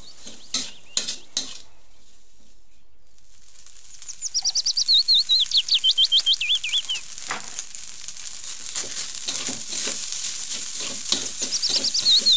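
A metal spatula scraping and knocking against an aluminium wok as fried rice is stir-fried, with a steady sizzle and scraping strokes coming about two to three a second in the second half. A songbird sings a fast run of rising and falling whistled notes from about four seconds in, and again near the end.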